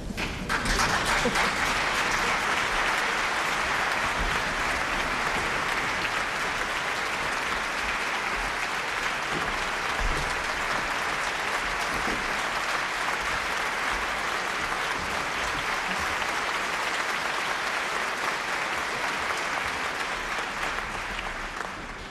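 Concert audience applauding steadily, starting up about half a second in and dying away near the end.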